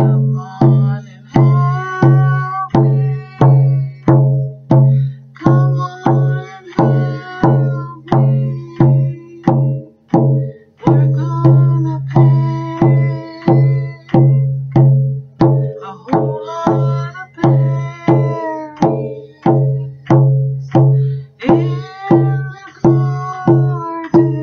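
A hand drum struck with a padded beater in a steady beat of about two strokes a second, each stroke ringing with a deep tone, while a woman sings a Nisga'a berry-picking song over it in phrases with short gaps between them.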